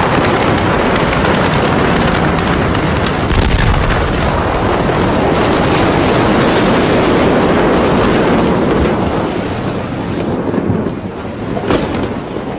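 Loud, continuous rushing din from the Beirut port explosion, full of sharp crackles and pops, easing after about nine seconds.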